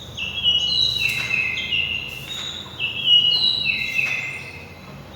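Sparrow chirping: two quick runs of high chirps, each run stepping down in pitch.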